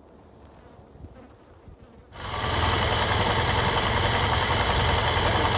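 Faint outdoor quiet, then about two seconds in a motorcycle engine comes in suddenly and runs steadily, loud and close, as heard from a camera mounted on the bike.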